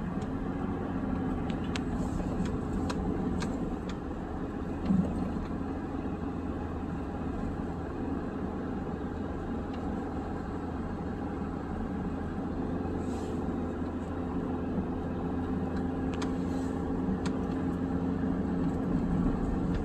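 Steady engine and road noise inside a moving vehicle's cabin, with tyres on wet pavement. There are a few faint clicks and one brief bump about five seconds in.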